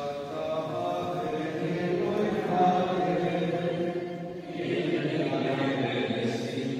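Voices singing a slow, chant-like hymn together, the notes held long; the singing dips briefly past the middle and then goes on.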